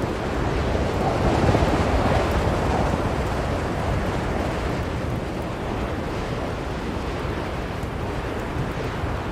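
Blizzard wind blowing steadily in a deep rushing whoosh, swelling into a stronger gust about a second or two in before settling again.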